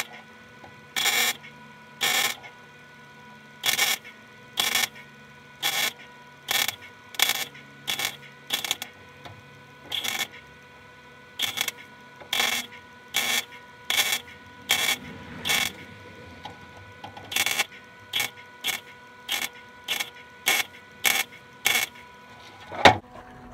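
Welding arc laying short tack welds to stitch a sheet-metal patch panel into a car floor pan: a brief burst of arc crackle for each tack, about one a second with short pauses between, spaced out so the thin floor metal does not warp. A single sharp knock comes near the end.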